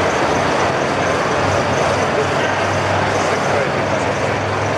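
Steady hubbub of a crowd chattering in a large exhibition hall, with a low hum running underneath.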